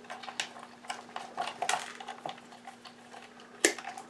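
Wire strippers clicking and scraping as they strip the ends of the vacuum's wires: a run of small metallic clicks and scrapes, with a sharper snap near the end.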